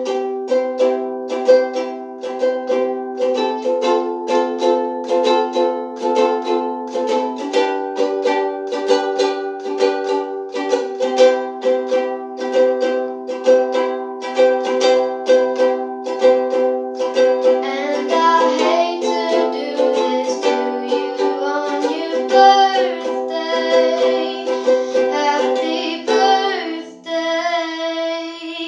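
Ukulele strummed in a steady rhythm, the chord changing now and then. From a little past halfway, a girl's voice sings along over the strumming.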